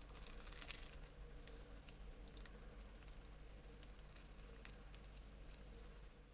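Faint crackling and crinkling of a crisp grilled rice-paper pizza (bánh tráng nướng) and its parchment wrapper as hands pull a wedge apart, with a sharper crackle about two and a half seconds in.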